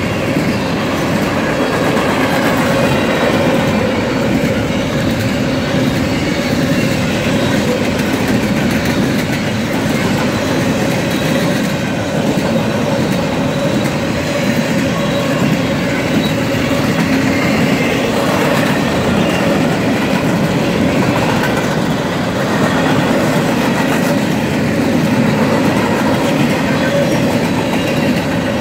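Empty TTX intermodal flatcars of a fast freight train rolling past close by, their steel wheels giving a continuous, steady clatter and rumble on the rails.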